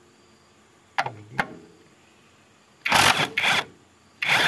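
A wrench undoing the front strut's top-mount nuts on the strut tower: two sharp clicks about a second in, then short bursts of rapid metallic clatter around three seconds in and again near the end.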